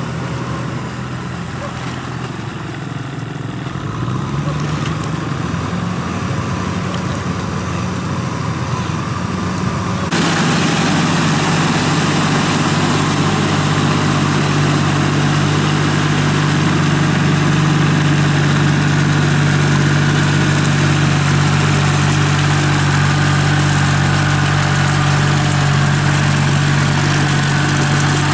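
Small tractor engine running while the tractor works a flooded rice paddy. Its pitch wavers a little in the first few seconds. About ten seconds in the engine becomes closer and louder, holding a steady pitch.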